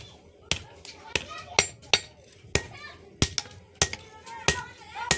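Hand hammer striking metal on an anvil during forging, about ten sharp blows at an uneven pace of roughly two a second, some with a brief ring.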